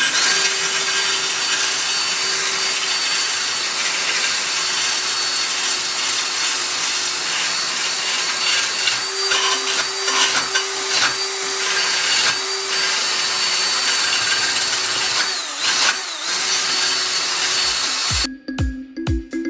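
An electric drill spins an Arnold blade-sharpener grinding head against the steel edge of a lawn mower blade. The drill runs with a steady whine under a grinding hiss, which pulses for a few seconds midway as the pressure changes. The grinding cuts off about a second before the end, and music with a steady beat starts.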